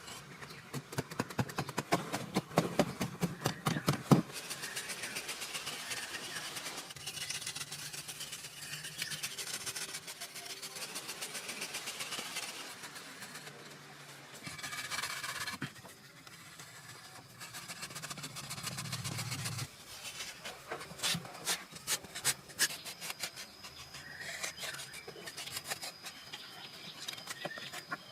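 Hand-tool building work: bursts of quick sharp knocks and clicks, about four seconds at the start and again about twenty seconds in, with stretches of scraping and rasping between them that break off abruptly.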